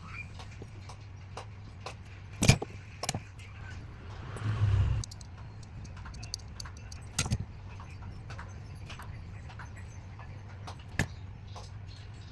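Scattered clicks and knocks of small hard parts and tools being handled, the loudest about two and a half seconds in, with a brief scraping rustle near the middle, over a steady low hum.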